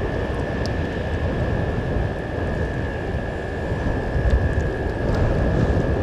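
Wind buffeting the outdoor microphone, a steady low rumble, with a thin steady high tone beneath it.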